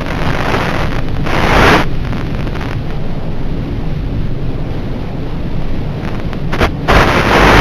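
Wind buffeting the microphone, a constant low rumble with stronger gusts about a second and a half in and again near the end.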